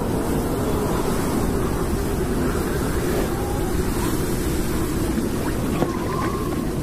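Strong wind blowing steadily, a dense low rushing with a faint wavering tone running through it.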